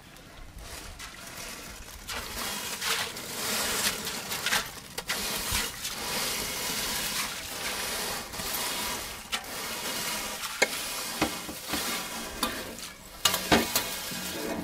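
A large pot of hot water hissing and bubbling as dry egg noodles are tipped into it from a metal plate, with scattered light taps and clatters. The hiss builds over the first couple of seconds and then holds steady.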